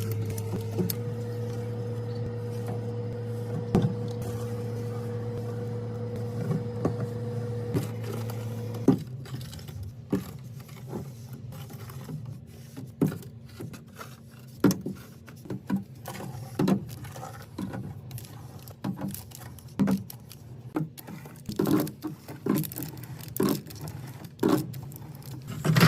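A steady mechanical hum that cuts off abruptly about a third of the way in, followed by irregular clicks and knocks of snack and drink items being handled and set down while restocking.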